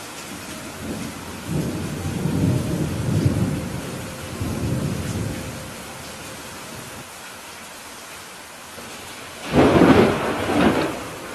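Steady heavy rain hissing, with a long low rumble of thunder in the first half and a sharper, louder thunderclap near the end that cracks and rumbles twice before fading.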